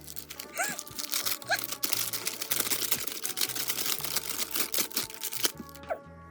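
Plastic packaging crinkling and crackling as a small toy is unwrapped by hand, over background music.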